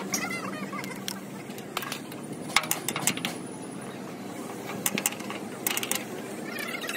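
Workshop sounds: scattered sharp clicks and knocks, a few in quick clusters, over a steady low hum, with brief voices near the start and end.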